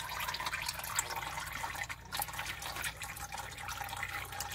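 Hydraulic oil trickling in thin streams and dripping into a bucket from the open spool bores of a Cat 424B backhoe loader's excavator control valve, a steady irregular patter, after the spools have been pulled out.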